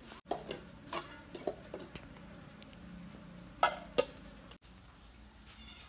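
Tabby cat eating dry kibble from a plastic tray: irregular crunching clicks, with the two loudest a little after three and a half seconds in.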